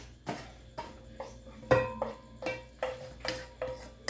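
A spatula knocking and scraping a nonstick saucepan as its fried tomato, onion and green chile are emptied into a glass blender jar: about ten knocks, two or three a second, several with a short ringing tone.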